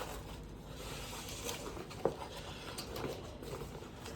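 Faint rustling and scraping of a plastic motocross chest protector and its straps being handled and put on, with a sharp click about two seconds in.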